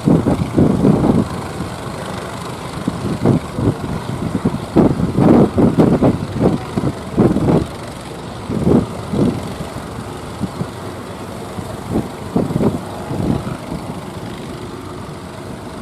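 Boat engine running with irregular surges in level over a steady low rumble, the surges thick in the first half and thinning out toward the end.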